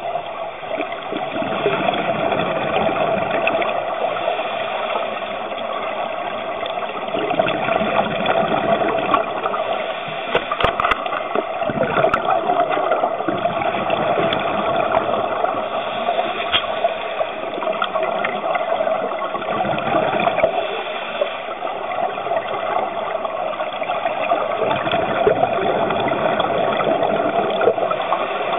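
Underwater ambience picked up by a camera in its dive housing: a steady, muffled rushing and crackling of water that swells and eases slowly.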